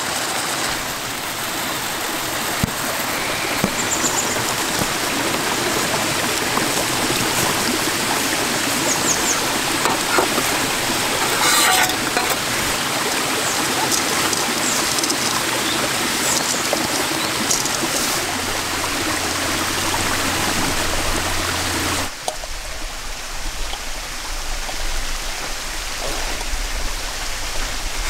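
Mountain stream rushing steadily, an even wash of water sound with a few short high chirps over it. About 22 seconds in the rush suddenly drops to a quieter, lower level.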